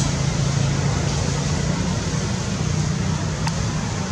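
Steady low hum with an even hiss underneath, and a faint single tick near the end.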